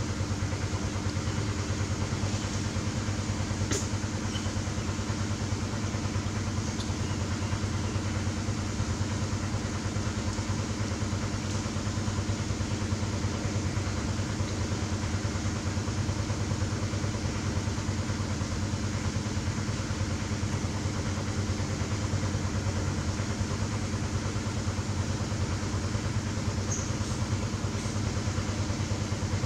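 A steady low mechanical hum made of several even tones, unchanging in level, with a few faint clicks.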